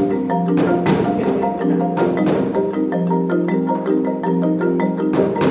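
Background music of struck, pitched notes played in a steady rhythm.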